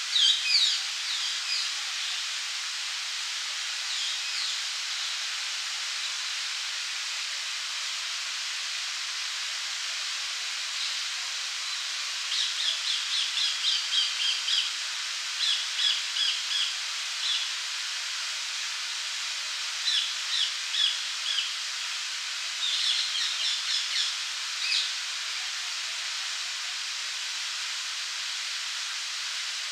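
Fountain jet splashing steadily into its basin, a constant hiss of falling water. Over it, small birds sing in short groups of rapid, repeated high chirps several times: about a second in, then in a longer run of groups in the middle and again near the end.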